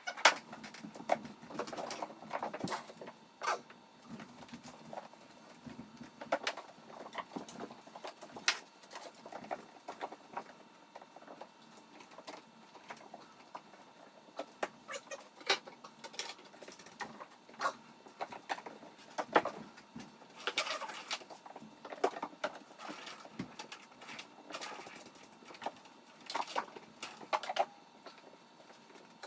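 Long-handled broom and plastic dustpan sweeping a wooden floor while kittens play on them: irregular brushing and scattered light taps and knocks, with the patter of small paws.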